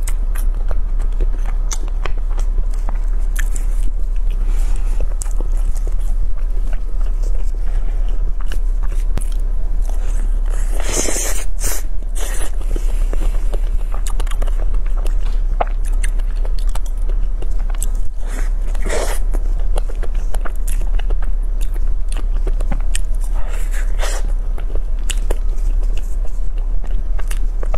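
Eating sounds from biting into and chewing crisp tart pastry and cream-topped fruit tarts, with many small mouth clicks and a few louder bites. A steady low hum runs underneath.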